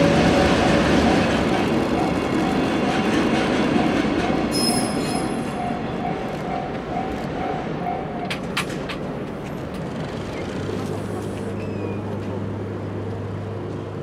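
Freight train hauled by a JR Freight EF210 electric locomotive rumbling over a level crossing and fading away, with a brief high wheel squeal about five seconds in. The crossing's electronic warning bell rings in a steady two-tone alternating rhythm and stops about eight seconds in, followed by a few sharp clicks, then a low steady hum of road traffic.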